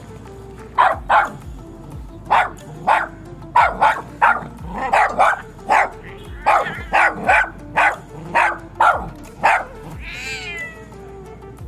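Dog barking in a run of about eighteen short, sharp barks, roughly two a second, ending with one longer call that falls in pitch, over background music.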